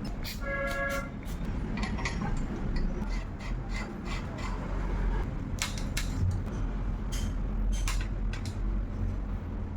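Scattered metal clicks and knocks of tools and bicycle parts being handled during repair work, over a steady low hum, with a brief squeak about half a second in.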